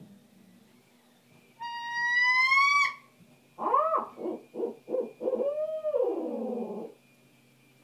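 Owl-style hooting from a hootin' stick call: a held, high, slightly rising scream from about 1.5 to 3 seconds in, then a run of hoots, each rising and falling in pitch.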